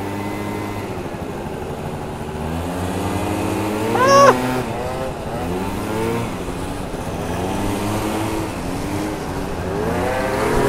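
Small 50cc two-stroke scooter engines revving up and down while riding, the pitch climbing and dropping again and again, with one sharp high rev about four seconds in.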